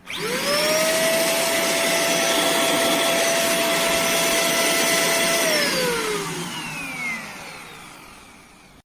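Simplus vacuum cleaner switched on, its motor whining up to speed within about half a second and running steadily. About five and a half seconds in it is switched off and winds down, the whine falling in pitch as it fades.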